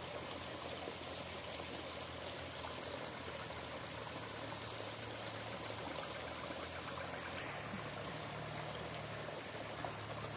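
Shallow stream water running and trickling steadily as it spills into a small pool.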